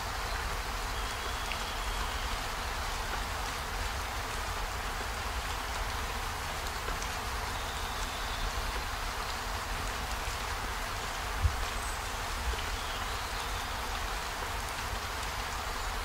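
Steady rainfall ambience, an even patter of rain, with a few faint short bird chirps and a single soft thump about two-thirds of the way through.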